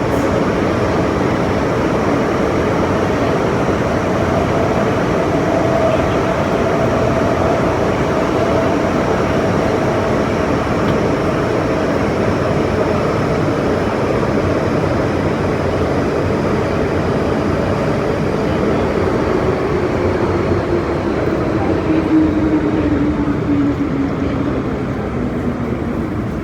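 Metro-Cammell M-Train electric multiple unit running through a tunnel, heard from inside the passenger car: a steady loud rumble of wheels and running gear with a motor whine. Over the last several seconds the whine falls in pitch as the train begins to slow.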